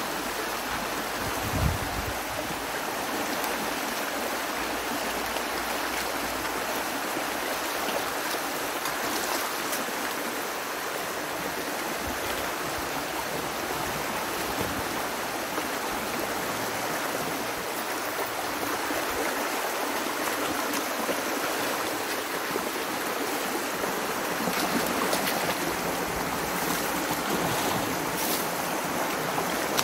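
Water rushing steadily through a breach in a beaver dam, a continuous whooshing cascade. A single low thump about two seconds in.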